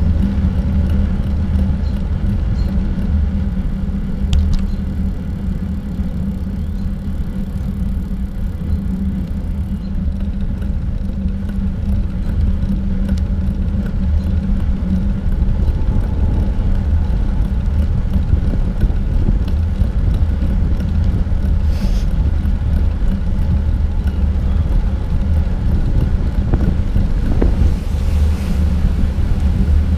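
Steady low rumble of wind and road vibration on a bicycle-mounted GoPro while riding along a paved trail, with a couple of faint clicks.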